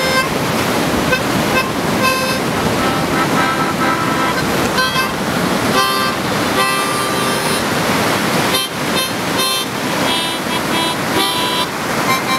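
Harmonica played in a run of short and held chords, the notes changing every second or so, over a steady rushing background noise.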